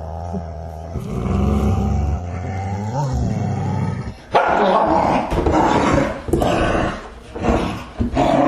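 Dog growling: a low, rumbling growl for about four seconds, then a sudden louder, harsher snarl that comes in several pulses, one per breath.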